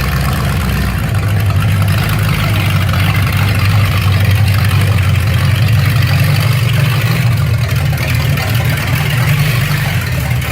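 Engine running steadily with a deep, even hum and no change in speed.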